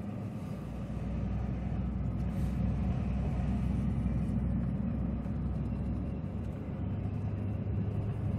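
Chevrolet Silverado pickup heard from inside the cab while driving at low speed: a steady low engine and road rumble.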